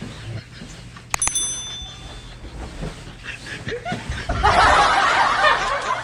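A click and a short bright ding about a second in, the notification sound of a YouTube subscribe-button animation. From about four seconds in there is loud, sustained laughter.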